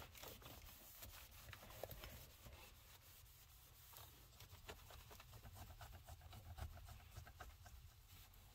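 Faint rubbing and light scratching of a microfiber cloth wiped over a car's plastic dashboard and touchscreen, in short irregular strokes over a steady low hum.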